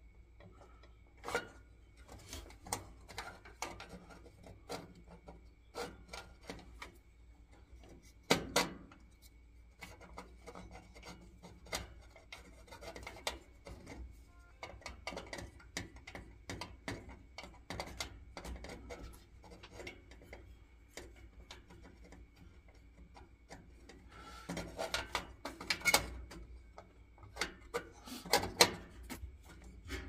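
Irregular small clicks, taps and scraping of hands working metal fittings at an old Baxi boiler's gas valve and thermocouple connection, during a thermocouple replacement. A few louder knocks come about eight seconds in and again near the end, over a faint steady high whine.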